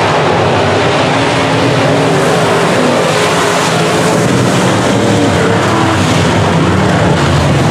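A field of semi-late model dirt-track race cars running at speed, many engine notes overlapping in one loud, steady sound.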